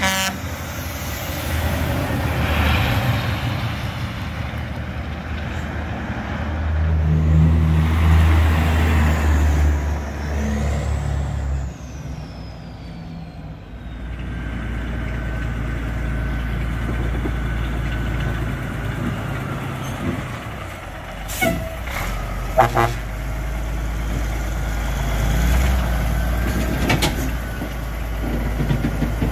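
Heavy diesel trucks on the road: a Kenworth T800H pulling a trailer drives past, its engine loudest about seven to ten seconds in. After a cut, another truck engine runs with a steady low rumble, broken by a few short sharp sounds such as air-brake hisses.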